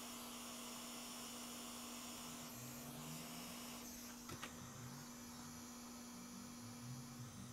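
Faint steady mains hum over a low hiss, with a light click about four seconds in.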